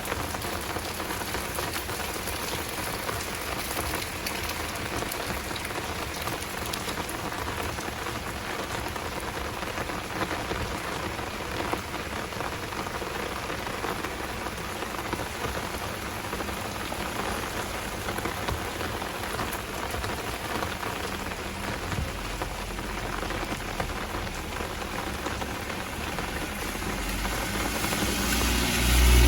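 Heavy rain falling steadily in a dense, even hiss. Near the end a low rumble from a passing vehicle grows louder.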